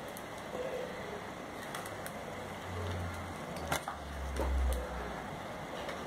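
Glossy slime being stretched and folded by hand, giving a few faint sticky clicks and pops. A low rumble swells up in the middle for about two seconds.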